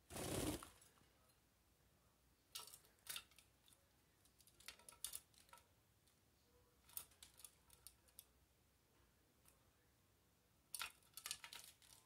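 A budgie's wings whirring briefly as it flies off, then a budgerigar bathing in a shallow plastic bath dish: short crackling bursts of splashing and wing-flicking in the water, five quick clusters with quiet between.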